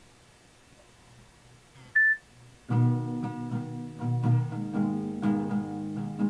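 Acoustic guitar starting up about two and a half seconds in, playing picked chords in a steady pattern as a song intro. Just before it, about two seconds in, comes one short high beep.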